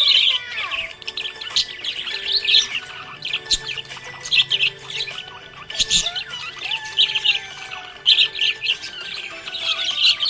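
Budgerigar chirping and chattering in quick, repeated bursts of high warbling notes.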